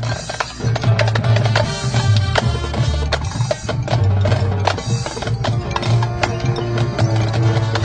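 Marching band playing: a drumline's rapid, sharp strikes over held brass and woodwind notes and a low bass line.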